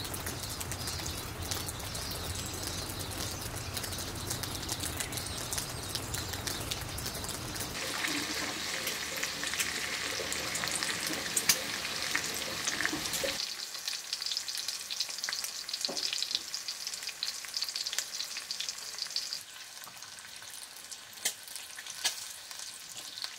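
Bacon frying in a pan: a steady sizzle dotted with many small pops and crackles. The sound changes abruptly about 8 and 13 seconds in, and grows quieter over the last few seconds.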